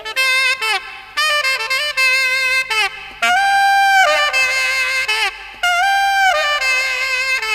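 Saxophone playing a slow melody of long held notes joined by short slides, over a soft band backing.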